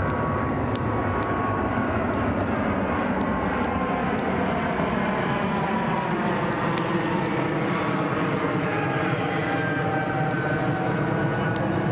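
Airplane flying overhead: a steady engine hum whose pitch lines glide slowly, over scattered sharp crackles from the wood campfire.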